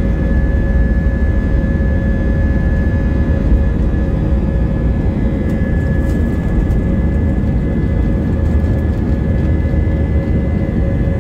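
Steady engine and airflow noise inside the cabin of a departing Airbus A320-232 with IAE V2500 engines: a loud, even low rumble with a steady whine held over it.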